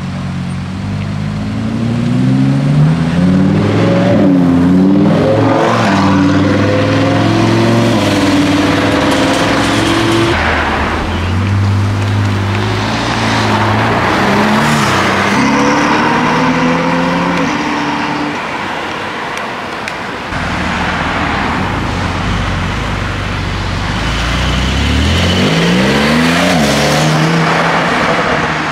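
Several sports cars accelerating away one after another, engine pitch climbing and dropping back at each gear change.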